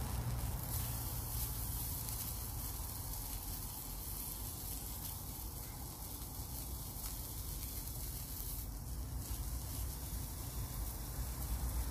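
A pork chop sizzling steadily in a frying pan over an open fire, with a low rumble underneath.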